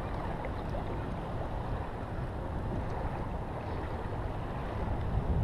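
Steady rush of choppy waves around a kayak, with wind rumbling on the microphone.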